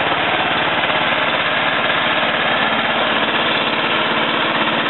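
Small stationary petrol engine running steadily at constant speed, belt-driving an unfired homemade radial engine on a test stand so that its pistons go up and down for an oil-pressure check.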